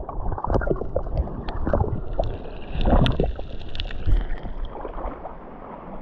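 Water sloshing and splashing close by, in irregular swells with scattered small clicks and splashes.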